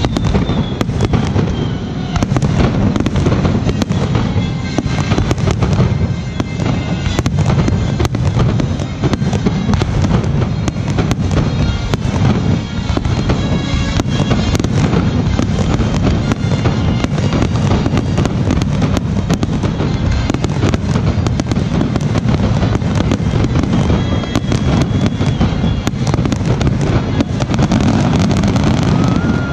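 Rapid barrage of aerial firework shells bursting, many bangs a second with no let-up.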